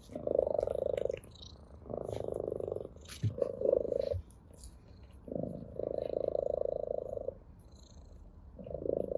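Orange tabby cat purring in bouts of one to two seconds with short breaks between breaths, about five bouts in all, the last starting near the end. Light clicks and rustles in between.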